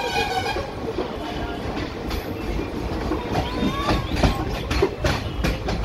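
Passenger train running along the track, heard from aboard a moving coach: a steady rumble with the wheels clattering over rail joints in uneven knocks.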